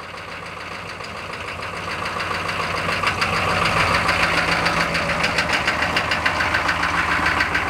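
Diesel truck engine idling cold just after a cold start, with a steady, rhythmic diesel knock. It grows louder over the first three seconds, then holds steady.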